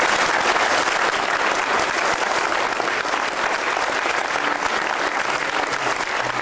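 Guests clapping, a steady round of applause greeting the newly married couple's first kiss.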